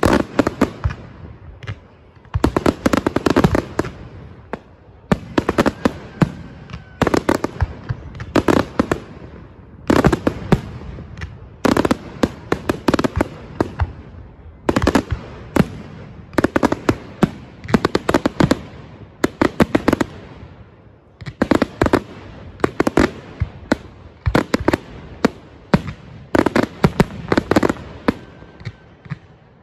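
Aerial fireworks display: volleys of shells bursting in quick succession, a cluster of sharp bangs every second or two.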